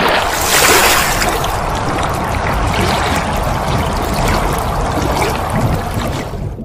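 Loud, steady rushing water, a stock heavy-rain-and-water sound effect, tailing off near the end.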